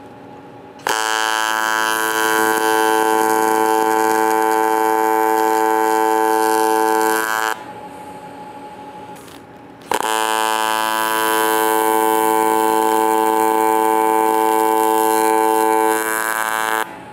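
AC TIG welding arc on aluminum buzzing steadily, twice: once from about a second in for some six seconds, then again from about ten seconds in for about seven seconds. Each burst is a tack weld on a lap joint, starting and stopping abruptly.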